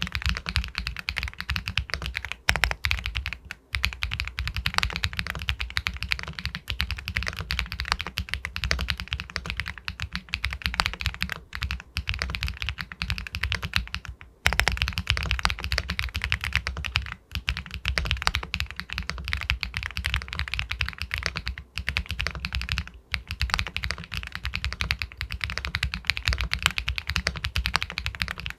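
Fast continuous typing on an Epomaker Galaxy 80 Pro aluminium mechanical keyboard with White Jade linear switches: rapid clacky keystrokes, with a few brief pauses between bursts.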